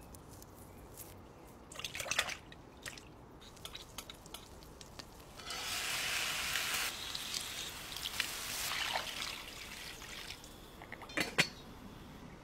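Wet squelching and dripping as raw meat is handled in a bowl. Then liquid and meat pour into a wok for a second or two, with a shorter splash after. One sharp metallic clank near the end as the lid is set on the wok.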